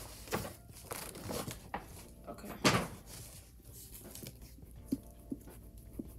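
Paper shopping bag rustling and crinkling as a boxed laptop is pulled out of it, with one louder rustle about two and a half seconds in.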